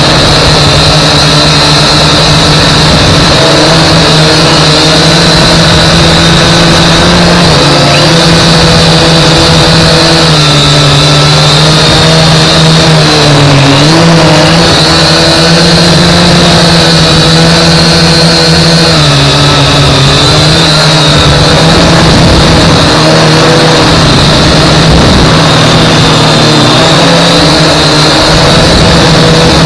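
Global Drone X183 quadcopter's motors and propellers whining steadily, heard from its onboard camera, the pitch dipping and rising as the drone manoeuvres, most clearly about 13 seconds in and again near 19 seconds.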